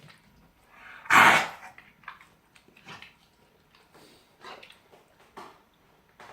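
A dog coughing and hacking: one loud harsh cough about a second in, then several fainter short hacks about a second apart. The owner believes something is stuck in its throat, perhaps a fish bone.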